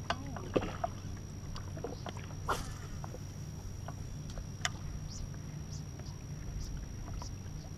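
Open-water boat ambience: a steady low hum with a few scattered clicks and knocks, and faint short high chirps in the second half.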